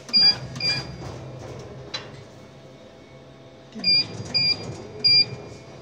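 Laser cutting machine's controller beeping: five short, high electronic beeps, two near the start and three more from about four seconds in. A steady low machine hum runs underneath.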